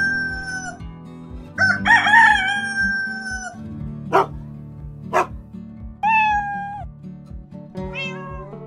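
Background music with a steady beat, overlaid with farm-animal sound effects: a rooster crowing about two seconds in and a cat meowing around six seconds in, among other short animal calls.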